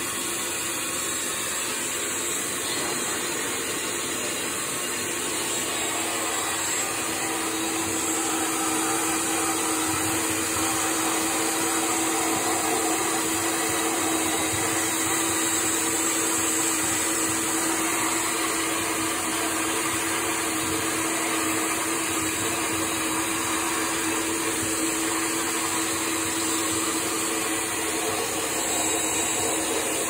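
A small motor running steadily, a vacuum-like whir with a steady hum, getting a little louder about eight seconds in.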